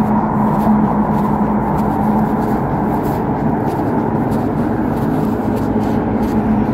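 Steady electric hum of a Lidingöbanan tram standing at the platform, one low tone held over a wash of equipment noise.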